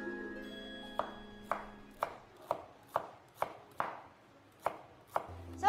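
Kitchen knife chopping on a cutting board: a slow, uneven series of single chops, about two a second.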